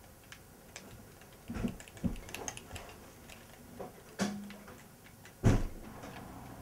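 A few scattered knocks and light clicks, with one much louder thump about five and a half seconds in.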